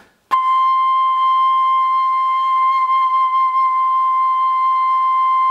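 Bamboo pífano (Brazilian transverse fife) playing one long, steady high C, the first note of its second octave. The note starts cleanly just after the beginning and holds at an even pitch and loudness.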